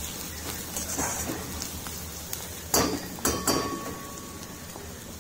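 Chopped onions sizzling in hot oil in a stainless-steel kadhai, a steady crackling hiss, being fried until lightly golden. About three seconds in come two or three sharp metallic clinks against the pan.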